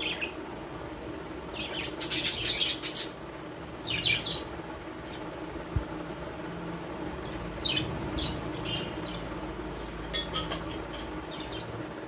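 Small caged parrots chirping in short clusters of sharp, high calls, loudest about two to three seconds in, over a steady low hum.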